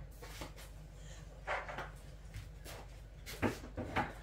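Faint kitchen handling noises: a soft scrape about one and a half seconds in and two light knocks near the end, over a low steady hum.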